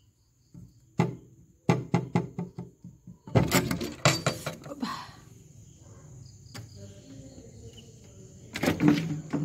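Irregular knocks, taps and rattling on a wooden-framed glass window: a knock about a second in, a quick run of taps, then a loud clatter about three and a half seconds in and another near the end.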